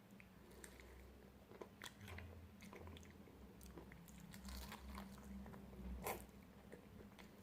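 Faint close-up biting and chewing of crispy fried chicken wings, with scattered small crunches and one louder crunch about six seconds in.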